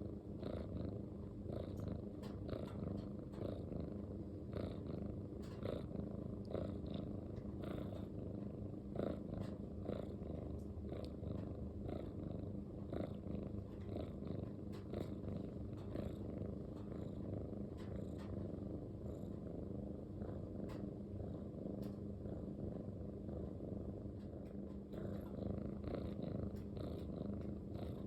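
A Munchkin cat purring steadily.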